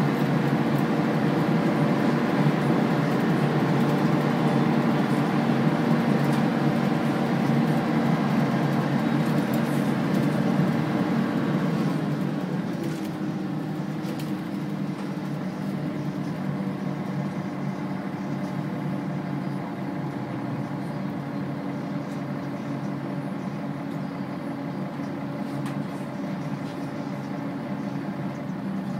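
Volvo B10BLE bus's rear-mounted six-cylinder diesel engine running under way, heard from inside the passenger saloon. It runs loud and hard at first, then drops in pitch and gets quieter about twelve seconds in, and carries on at a steadier, lower drone.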